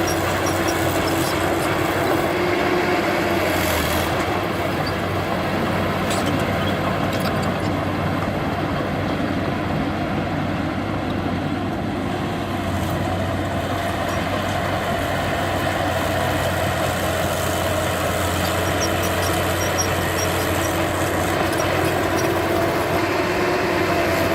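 Heavy diesel engine of earthmoving machinery running steadily, its pitch drifting only slightly, with a few faint clanks.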